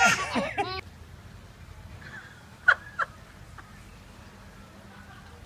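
High-pitched baby laughter in quick bursts, cut off under a second in. Then low background with two short, sharp sounds close together near the middle.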